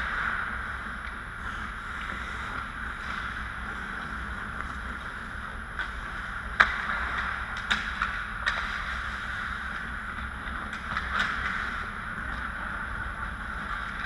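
Ice hockey play: skate blades scraping on the ice over a steady rink hiss, with a few sharp clacks of sticks and puck, the loudest about six and a half seconds in and three lighter ones just after.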